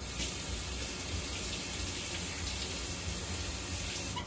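Kitchen tap running steadily into a sink, starting abruptly and shutting off near the end.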